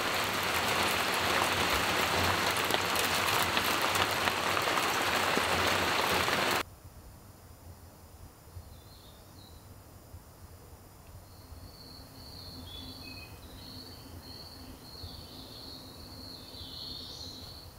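Heavy rain pouring steadily, which cuts off abruptly about six and a half seconds in. Quiet follows, with faint, scattered high-pitched bird chirps.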